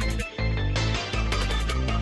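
Electronic intro music with a heavy bass line and a driving drum beat, briefly dropping out twice.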